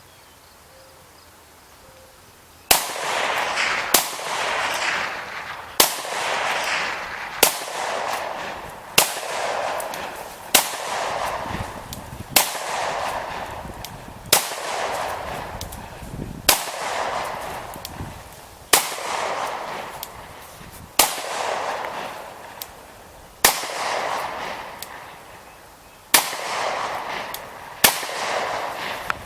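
Gunshots fired one at a time at a slow, steady pace, about one every two seconds, fourteen or so in all. Each sharp crack is followed by a long echo that fades out before the next shot.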